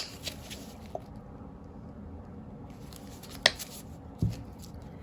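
Quiet handling of paint cups during acrylic pouring: a faint click about a second in, a sharp click a little past halfway and a low thump soon after, over faint room noise.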